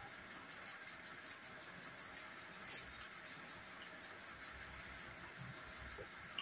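Faint eating sounds over a steady background hiss: fingers mixing rice on plates and chewing, with a few soft clicks.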